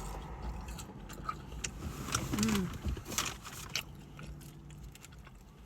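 Biting into and chewing a crispy fried onion ring: a run of sharp crunches, thickest about two to four seconds in, over a low steady rumble.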